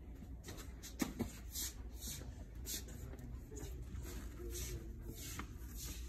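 Shop ambience: a steady low hum with a faint murmur, and a few light clicks about a second in and again near the end.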